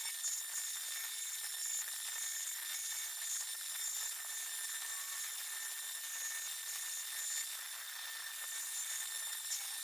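Abrasive fiber wheel spinning on a power tool and scrubbing rust off steel: a steady, fairly faint high hiss with thin steady whining tones.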